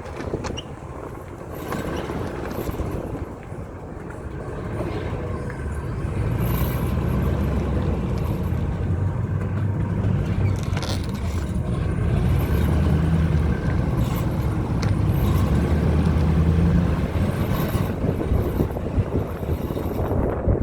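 2001 Ford F-150 running: a steady low engine drone that grows louder about six seconds in and holds.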